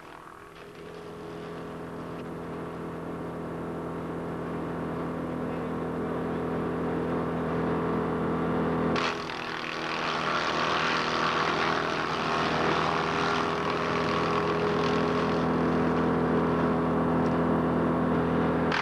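Wood chipper's engine running steadily, growing louder. About halfway through, the sound changes abruptly, and a broad rushing noise is added over the engine.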